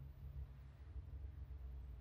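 Quiet room tone with a steady low hum and no distinct sounds.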